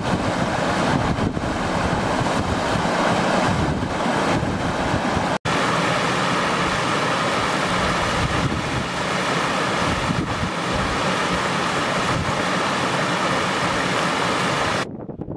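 Mountain stream cascading over rock in small waterfalls: a steady rush of white water. The sound breaks off for an instant about five seconds in, then resumes.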